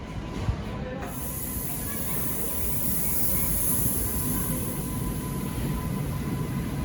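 Train moving through a station: a low rumble builds gradually, and a steady high hiss sets in about a second in.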